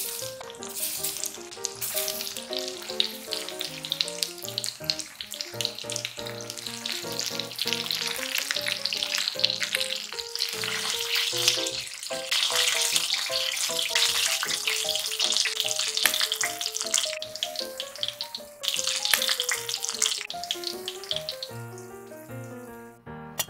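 Chicken pieces coated in potato starch deep-frying in hot oil (karaage), a dense sizzling and crackling that fades near the end, over light background music.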